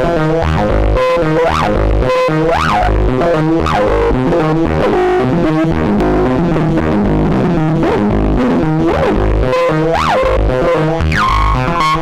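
Patched Make Noise synthesizers (0-Coast, 0-Ctrl and Strega) playing a sequenced, distorted synth bass line: repeating low notes under a stepping pitched pattern, with several quick sweeps that rise and fall.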